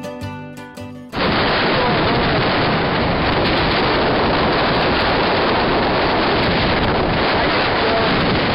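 Strong wind buffeting the camcorder's microphone: loud, steady wind noise that starts abruptly about a second in, cutting off a plucked-string music track.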